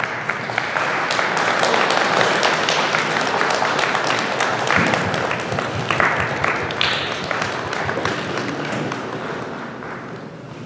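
Applause from a small gathering: many hands clapping steadily, gradually dying away over the last few seconds.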